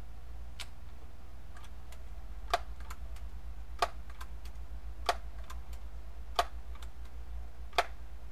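Daisy PowerLine 901 multi-pump air rifle being pumped: a sharp metallic click as each stroke of the pump arm closes, five strong clicks about 1.3 s apart with fainter clicks between them as the arm is swung open.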